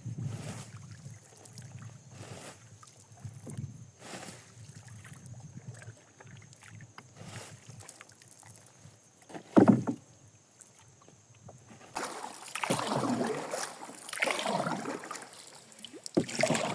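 Paddle strokes in river water from a small boat, coming as swells of splashing about a second apart in the last few seconds. There is a short loud cry about ten seconds in.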